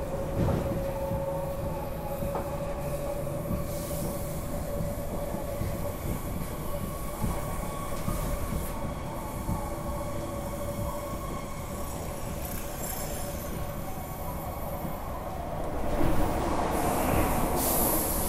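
MI79 electric multiple unit running at speed, heard from inside the carriage: a steady rumble of wheels on rail with a thin whining tone over it. It gets louder and brighter near the end as another train runs alongside.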